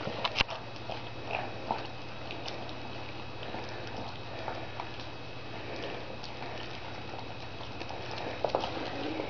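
Springer spaniel puppies eating together from one plate: a continuous crackle of small wet chewing and licking noises, with a few sharper clicks just after the start and again near the end.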